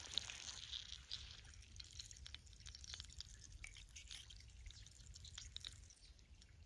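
Food frying faintly in a miniature pan: a soft sizzle thins out within the first second into scattered small crackles and pops, over a low steady hum.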